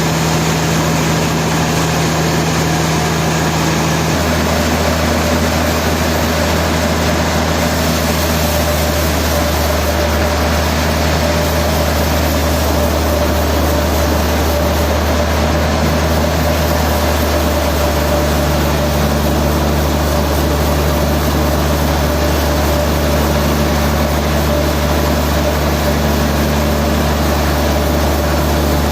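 Heavy sawmill machinery running steadily, a loud low drone with a constant tone above it and no cutting impacts. The drone shifts slightly about four seconds in and again later.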